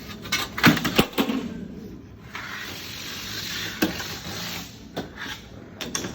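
Sheet-metal shop noise: a quick run of clicks and knocks, then a steady hiss lasting about two seconds, then a few scattered knocks near the end.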